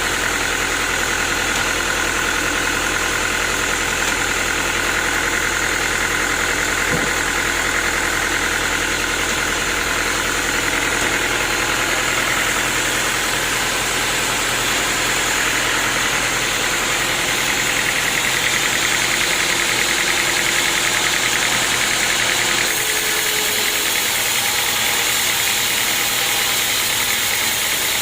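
Sawmill machinery running steadily as a log is milled: a loud, continuous mechanical whir and hiss from the saw and its drive. The low hum fades partway through, and the sound shifts slightly near the end.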